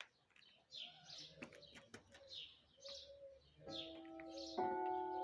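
Small birds chirping and a pigeon cooing. Near the end church bells are struck twice about a second apart, and the second, louder strike rings on.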